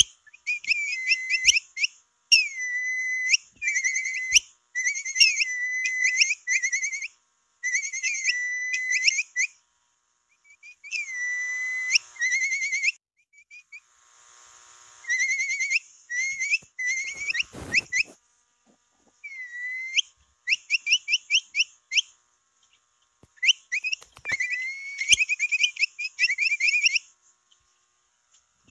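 Capybara whistle call used to attract capybaras: bouts of short, high whistled peeps in quick series, some opening with a longer sliding note, each bout about a second long with short pauses between. A brief crackle about two-thirds of the way through.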